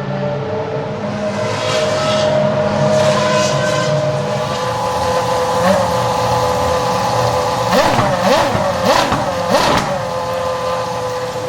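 Cosworth TJ2006 3.0-litre V10 of the Toro Rosso STR-1 Formula 1 car running steadily at a high idle, then blipped quickly several times about eight seconds in, each rev rising and falling sharply.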